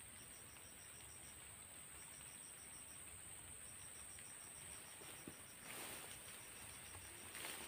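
Faint insect calls: a chirp repeating about seven times a second in runs of a second or so, over a steady high insect hum. A brief rustle sounds about six seconds in and again near the end.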